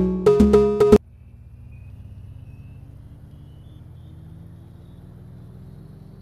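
Electronic intro music with a beat, cutting off suddenly about a second in; then a steady, low mechanical hum.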